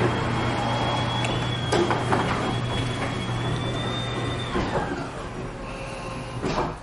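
A machine's steady low hum with a high, thin whine and a few sharp clacks; the hum and whine stop about four and a half seconds in, and what is left fades out.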